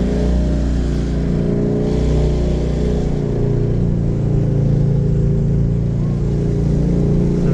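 Car engine running steadily, a low even drone with no change in pitch.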